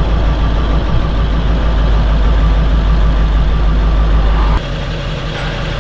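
Steady low rumble of a vehicle being driven in traffic, heard from inside the cab. About four and a half seconds in it cuts abruptly to a quieter running engine.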